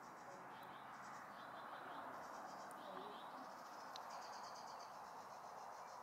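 Faint open-air background: a steady hiss with distant small birds singing in quick, high, repeated trills.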